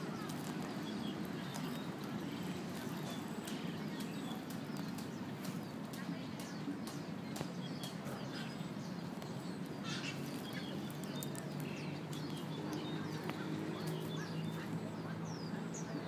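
Outdoor park background: a steady hum of distant voices, with faint small clicks and several short high bird chirps near the end.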